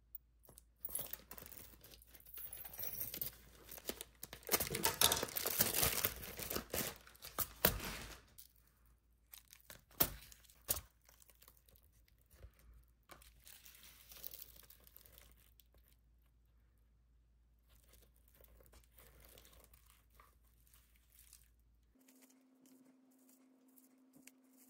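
Clear plastic wrapping crinkling and tearing as a plastic bead organizer box is unwrapped, loudest in the first eight seconds. Then two sharp clicks, fainter rustling of plastic, and a steady low hum near the end.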